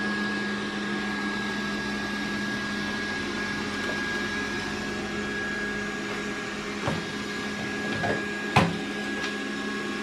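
Xiaomi S10+ robot vacuum running: a steady hum with a thin high whine over it. A few short knocks in the last few seconds, the loudest about eight and a half seconds in.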